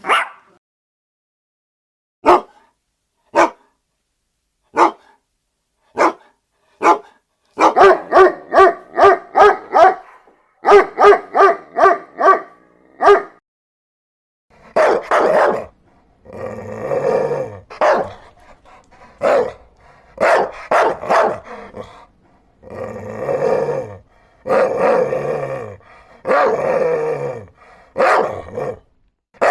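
Dogs barking. First come about five single barks a second or so apart, then a quick run of barks several a second. From about halfway a deeper dog barks in longer bouts.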